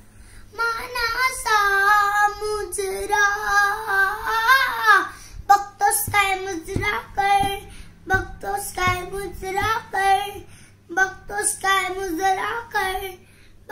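A young boy singing a Marathi song. He holds long, wavering notes for the first few seconds, then sings shorter phrases with brief pauses between them.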